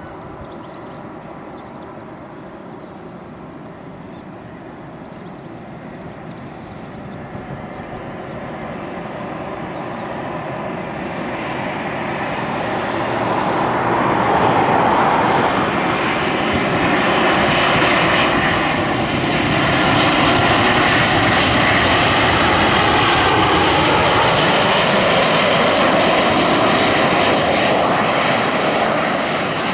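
Boeing 737-700's CFM56-7B turbofan engines on final approach, growing steadily louder as the jet comes in low and passes overhead. A high whine falls in pitch as it goes by.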